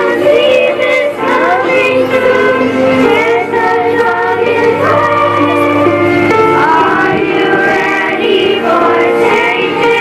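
Children's choir singing a song together, with a musical accompaniment.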